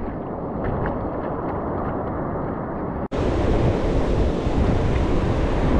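Wind buffeting the microphone over the wash of breaking surf. About three seconds in the sound cuts off abruptly and comes back louder, a fuller rush of wind and surf.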